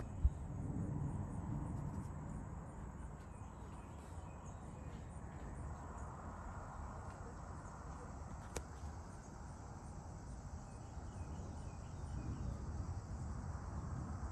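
Distant thunder rumbling low, fading over the first few seconds and building again near the end, with insects chirping faintly and a sharp tick just after the start.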